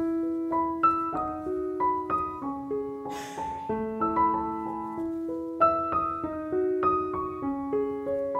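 Background solo piano music: a melody of single struck notes over held lower notes.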